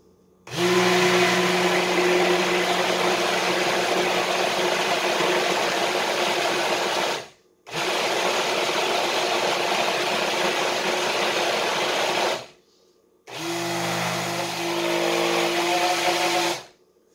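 Small personal blender motor running in three bursts, the first about seven seconds long and the others shorter, with brief stops between. It is whipping egg and oil into mayonnaise that has not yet thickened.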